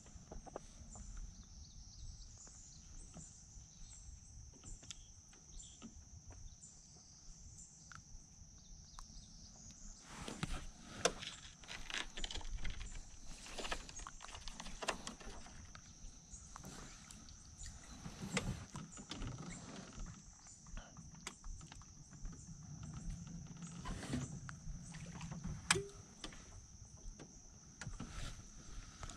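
Light knocks and clicks of fishing tackle being handled in a small boat, sparse at first and busier from about ten seconds in, with a couple of sharper clicks. Under them runs a steady high-pitched drone.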